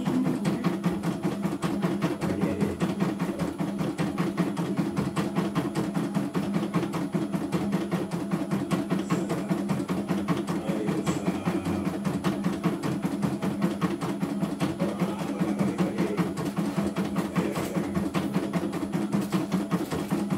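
CNY E900 computerised embroidery machine stitching: a steady run of rapid, evenly spaced needle strokes over a constant hum.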